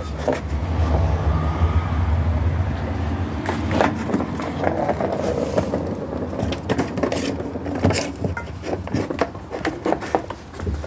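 Kittens scuffling and playing on a hard surface: scattered scrapes and light knocks, with a low rumble through about the first three seconds.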